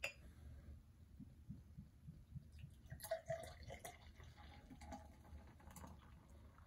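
Beer poured from a glass bottle into a glass stein: faint gurgling and splashing of the pour, busiest in the middle, with a light tap as the pour begins.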